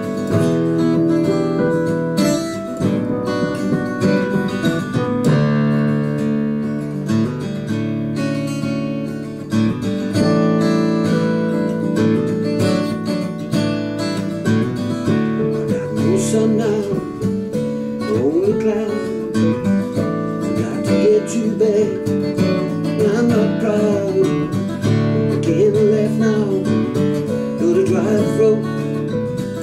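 Acoustic guitar strummed along with an electronic keyboard playing chords in a slow, wordless instrumental passage. About halfway through, a wavering, gliding melody line joins in.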